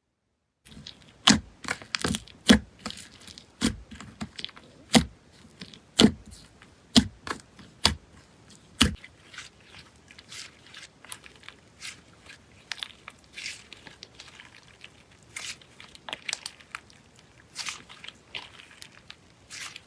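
Slime being pressed and stretched by hand, giving sharp pops and crackles: loud pops about once a second for the first nine seconds, then softer, quicker crackling.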